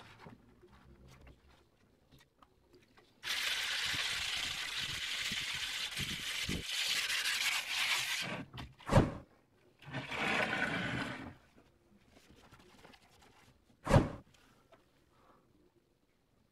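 A small stone being rubbed hard on wet sandpaper to polish it: a steady gritty scraping for about five seconds, then a shorter stretch of scraping. Two sharp knocks, one between the scraping stretches and a louder one near the end.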